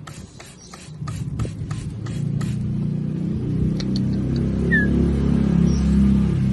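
Low motor rumble that grows louder from about a second in and then runs steadily, over a quick series of clicks at about five a second that stops about halfway through. A single short bird chirp is heard near the middle.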